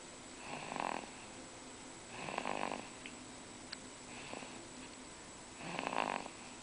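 Two-month-old baby snoring in sleep: three louder snoring breaths about two to three seconds apart, with a fainter one between, each with a fine rattling flutter.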